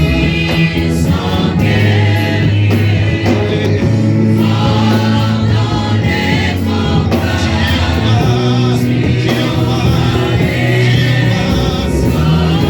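Loud gospel worship music: a group of voices singing together over a band with a steady bass line.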